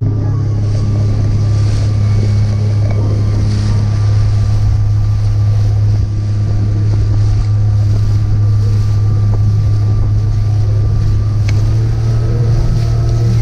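Boat engine running steadily under way, with wind buffeting the microphone; the engine note rises slightly about eleven seconds in.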